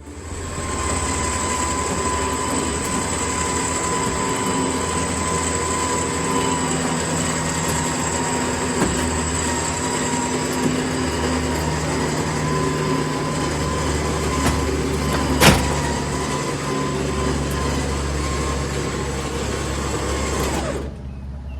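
A motor vehicle's engine running steadily, with a low rumble and a steady high whine, that cuts off abruptly near the end. There is one sharp knock about fifteen seconds in.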